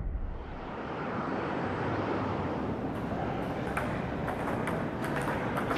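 Steady background noise of a large hall, with a few faint, sharp clicks of ping-pong balls striking tables and paddles from about three seconds in.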